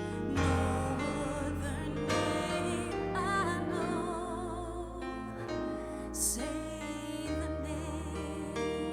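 Live worship band playing a song, with a voice singing with vibrato over sustained keys and a bass line.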